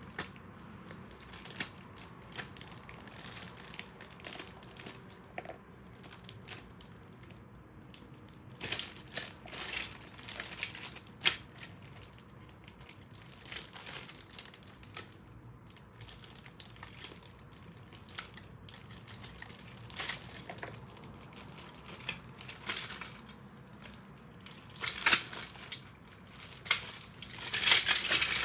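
Toy train packaging being crinkled and pulled off by hand: scattered rustles and crackles, getting louder and busier near the end.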